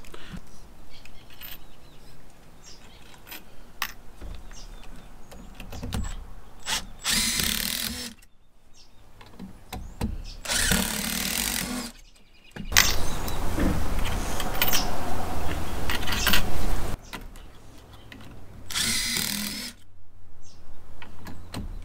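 Power drill with a depth-stop bit driving screws through hidden-fastener clips into composite deck boards, in four runs with one longer run of about four seconds in the middle. Each screw stops at a set depth. Clicks and knocks from the clamp tool and clips fall between the runs.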